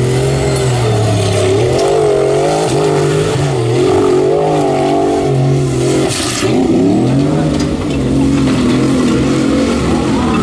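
Formula Offroad buggy engine at high revs on a steep sand hillclimb, the revs surging up and down over and over as the wheels spin and bite. There is a short burst of hissing noise about six seconds in.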